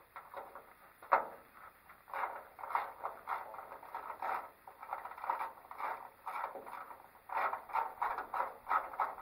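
A hand tool working at the hood hinge bolts of a pickup truck, making a run of short, irregular scraping strokes. There is a sharp click about a second in.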